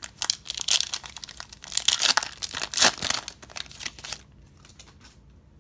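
Plastic-foil wrapper of a Donruss Optic football card pack being torn open and crinkled in the hands, a dense crackle that stops about four seconds in.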